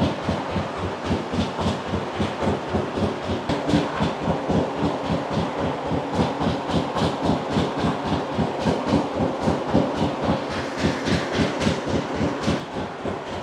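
Vintage farm tractor engine idling with an even, rapid beat of about five or six firing pulses a second. It is an old-style engine that runs on petrol or kerosene.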